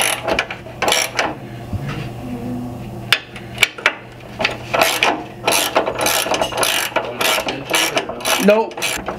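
Hand ratchet clicking in repeated strokes on a 24 mm bolt of a Land Cruiser's rear trailing arm, as the bolt is worked loose. A few scattered clicks at first, then quicker runs from about halfway through.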